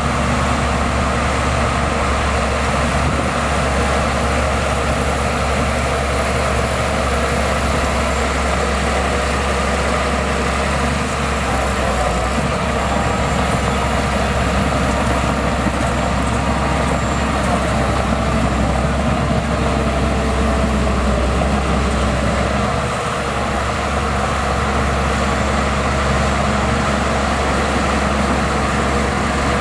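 Heavy diesel engine of earthmoving machinery running steadily, a deep, continuous rumble that eases briefly about three-quarters of the way through.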